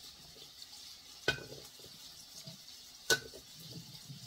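Kitchen handling sounds as sliced carrots and potatoes are moved from a cutting board into a slow cooker's pot: two sharp clinks with a short ring, about two seconds apart, between quieter rustles and taps.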